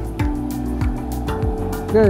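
Background music with a steady beat: a deep kick drum under sustained held notes.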